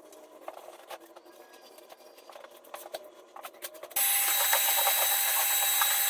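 A few faint clicks and knocks, then about four seconds in an electric wall sander starts abruptly and runs steadily, a loud hiss with a steady whine, sanding the wall surface.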